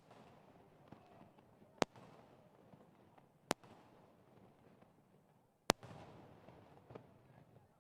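Fireworks bursting: four sharp bangs a second and a half to two seconds apart, some followed by a short rumbling echo.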